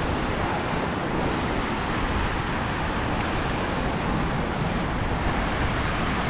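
Steady rush of ocean surf breaking on the beach, mixed with wind on the microphone.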